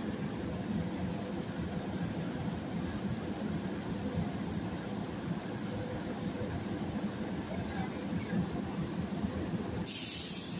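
GE Silverliner IV electric multiple-unit train standing at a platform, its onboard equipment running with a steady low hum and whoosh. About ten seconds in comes a short, sharp hiss.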